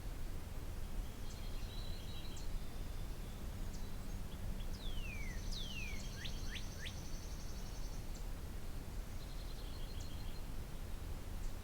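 Songbirds singing over a steady low background rumble. There are short trills of repeated notes near the start and again near the end, and in the middle a longer buzzy trill overlapped by a few down-slurred and up-slurred whistles.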